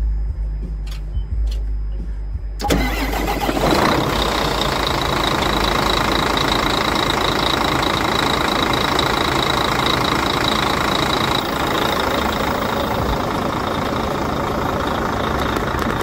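Volvo D12 inline-six diesel engine cranked by a newly fitted starter and catching almost at once, about two and a half seconds in, after a few faint clicks. It then runs at a steady idle, with a high steady whine that stops about eleven seconds in. The quick start shows that the new starter has cured the earlier click-no-crank fault.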